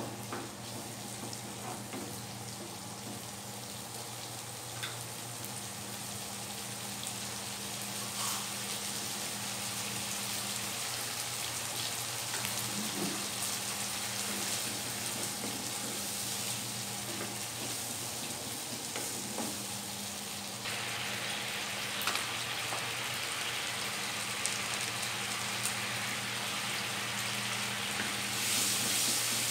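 Sweet soy, oyster and tomato sauces sizzling over sautéed onion, tomato and chilli in a nonstick wok, stirred now and then with a spatula that gives faint taps and scrapes. The sizzle grows a little louder about two-thirds of the way through.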